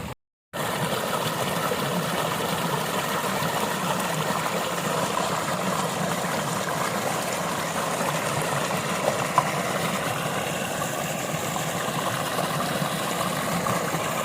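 Rainwater rushing steadily, an even hiss of flowing water, after a brief cut to silence right at the start.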